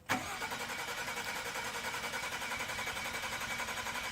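Ford F-150 2.7 EcoBoost's starter circuit making a rapid, steady chattering buzz as the key is turned, starting suddenly and holding on while the engine does not crank over.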